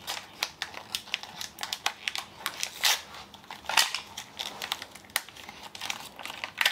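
Small plastic wrappers and packaging crinkling and rustling as tiny toy items are unwrapped, with many irregular short crackles and clicks.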